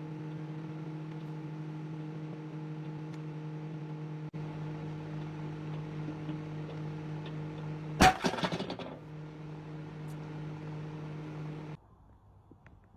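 Microwave oven running with a steady hum. About eight seconds in, an egg heating inside bursts with a single loud bang, followed by about a second of crackling, and the oven's hum cuts off near the end.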